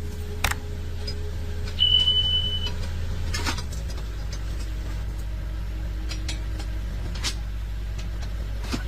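A heavy vehicle's engine running steadily, settling to a lower note about four seconds in. A brief high beep sounds about two seconds in, and there are a few sharp knocks.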